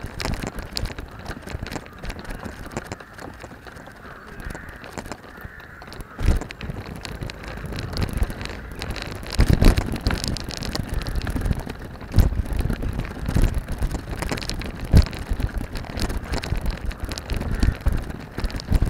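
Rumble and rattle of a moving golf-course carrier's wheels rolling over grass and a tarmac path, with irregular knocks that grow louder and more frequent from about six seconds in, and wind on the microphone.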